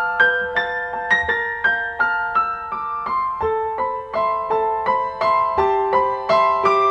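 Background piano music: a gentle melody of evenly struck notes, about three a second, over held chords.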